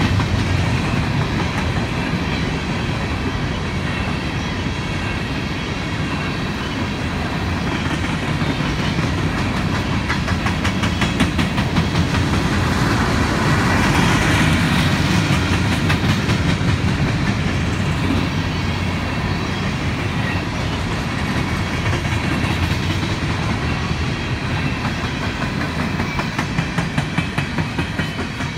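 Empty coal train's steel hopper cars rolling past close by, their wheels clicking steadily over the rail joints in a continuous clickety-clack. A run of louder, evenly spaced clacks comes near the end as the last car goes by.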